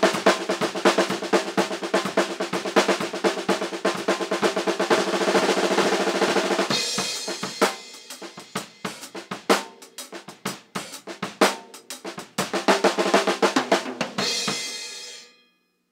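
Acoustic drum kit played by one drummer: snare, hi-hat and bass drum, including a very fast flurry of notes crammed together. A dense stretch of strokes over ringing drum tones gives way after about seven seconds to sparser single hits. Near the end comes another dense run with cymbals, which stops suddenly.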